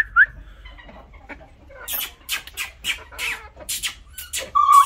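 Chickens calling: a short high peep at the start, then from about two seconds in a run of harsh, rapid calls about three a second, ending in a longer held call.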